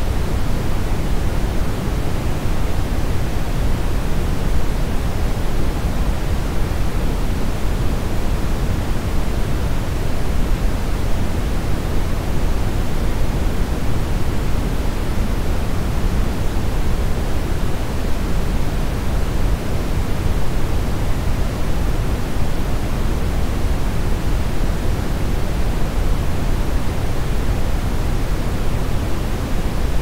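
Steady brown noise: an even, deep rushing hiss, strongest in the low end and thinning toward the highs, unchanging throughout.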